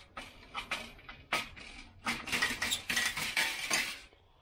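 Metal car parts clinking and rattling as they are handled, with a quick run of knocks and clinks about two seconds in.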